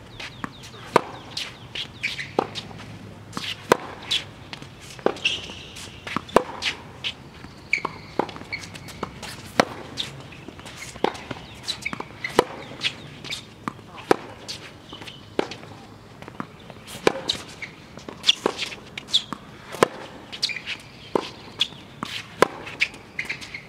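Tennis rally on a hard court: sharp pops of rackets striking the ball and the ball bouncing, about one to two a second, the near player's backhands loudest. Short high squeaks come between some of the hits.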